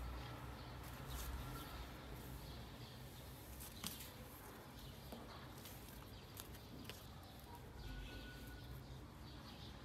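Faint rustling and crinkling of a silky scarf and its packaging being handled, with a sharper click about four seconds in.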